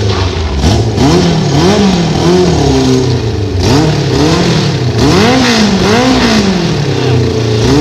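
Kawasaki KZ1000 inline-four motorcycle engine in a racing lawn tractor, revved up and let fall again and again, about once a second, as the tractor is ridden around.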